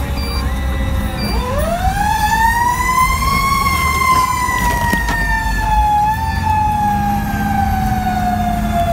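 Fire engine siren rising steeply in pitch about a second in, then slowly sliding down in pitch. It is heard from inside the cab over the low rumble of the truck's engine.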